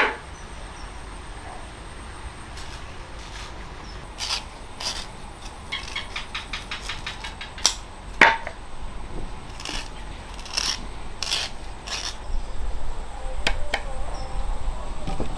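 Knife peeling and cutting sugarcane stalks: scattered scrapes and short clicks as the rind is pared away, with a sharp crack about eight seconds in.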